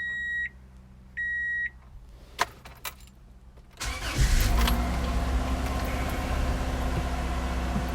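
A 1993 Subaru's warning chime beeps twice in short half-second tones, then a few clicks. A little before halfway the engine starts and runs steadily.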